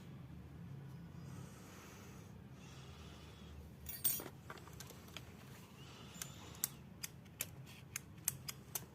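Small hard clicks and clacks from the switches, toggles and latches of a fidget board being played with: one louder clack about four seconds in, then a run of about ten quick clicks near the end.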